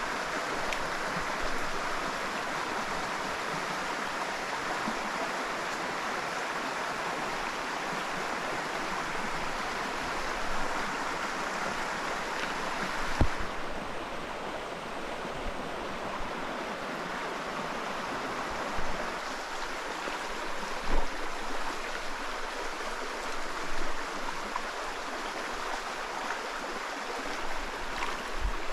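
Mountain trout stream rushing over rocks: a steady wash of water. It is broken by a few brief, soft thumps.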